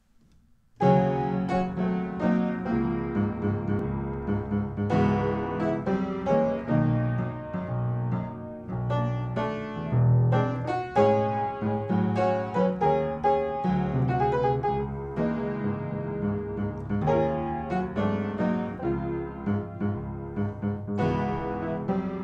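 Piano playing a jazz tune, chords and melody lines, starting suddenly about a second in.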